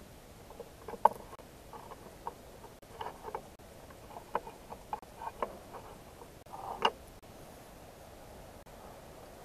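Small metal model-engine parts being handled by hand: scattered light clicks and taps of steel and brass pieces against each other and the metal base plate. The sharpest click comes about a second in, and a brief rattle ends in another sharp click about two-thirds of the way through.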